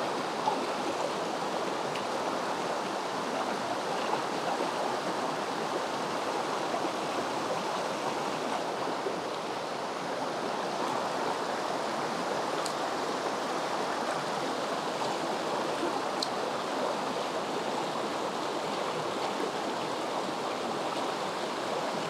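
Mountain stream water flowing steadily, a constant even rush.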